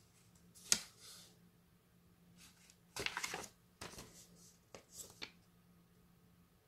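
Pages of a paper instruction booklet being handled and turned: a sharp tap under a second in, then a few short papery rustles between about three and five seconds in.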